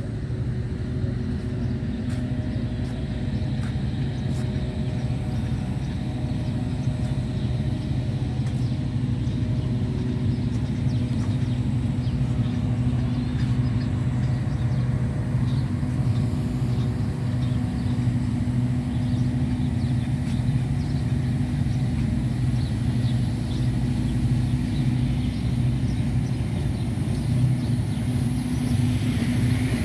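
A steady low machine hum and rumble, unchanging in pitch.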